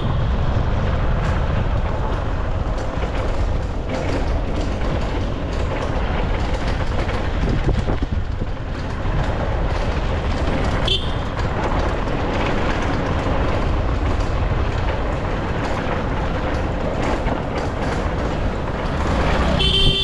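Steady rumble and road noise of a vehicle on the move, with a short horn toot near the end.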